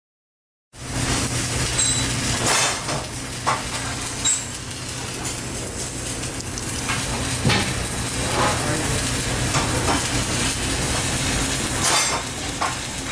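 Electric arc welding: a steady sizzling crackle from the arc over a low steady hum, starting abruptly just under a second in, with a few sharper pops along the way.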